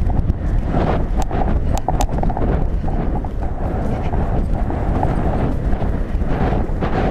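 Horse galloping, its hoofbeats under a steady rumble of wind on the helmet camera's microphone, with a few sharp clicks between one and two seconds in.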